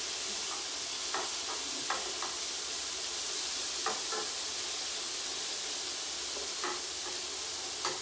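Fajita filling frying in hot pans with a steady sizzle, while metal utensils scrape and tap against the pans a few times.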